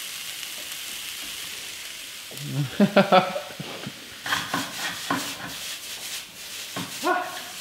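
Chopped onions and vegetables sizzling in a hot frying pan as a stir fry, with a wooden spatula stirring and the pan clattering. Short loud vocal calls break in about three seconds in and again near the end.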